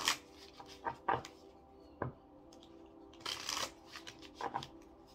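A deck of cards shuffled by hand, in several short bursts of cards slipping and slapping together. The longest burst comes a little past three seconds in.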